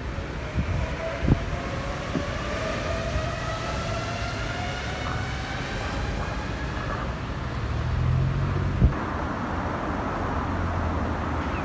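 Yui Rail monorail train pulling out of the station, its electric drive whine rising steadily in pitch as it speeds up and fading after about seven seconds. Street traffic noise follows, with a single click near the end.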